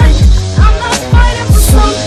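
Hip hop music with a deep bass beat: booming kicks that slide down in pitch, several times a second.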